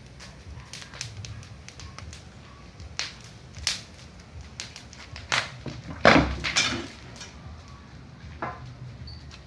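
Bonfire crackling with scattered sharp pops, the loudest about six seconds in; the onlookers think the pops come from the plaster on the wall.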